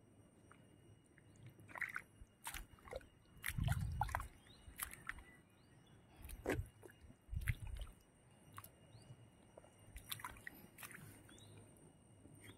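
Wet pond mud squelching and sloshing in irregular bursts as it is worked by hand, with a few sharp clicks; the heaviest squelches come about four seconds in and again past seven seconds.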